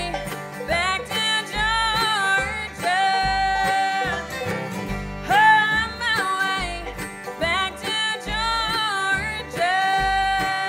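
Bluegrass band playing an instrumental passage on banjo, mandolin, guitars, fiddle and upright bass. A lead line of long held notes with slides between them rides over a steady upright-bass beat and strummed and picked rhythm.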